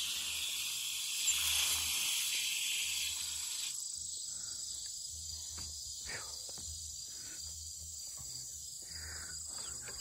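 A steady, high chirring of insects in a grassy field. Under it come footsteps and soft swishes of legs pushing through tall grass, repeating about once or twice a second.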